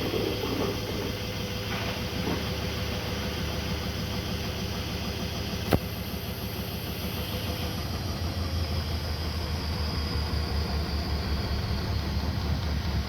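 Haier HW100-1411N front-loading washing machine running, its drum giving a steady low rumble that grows gradually louder in the second half. There is one sharp click a little before the middle.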